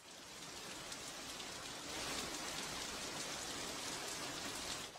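Rain falling steadily on pavement, a continuous hiss with the patter of individual drops; it swells about two seconds in and eases back near the end.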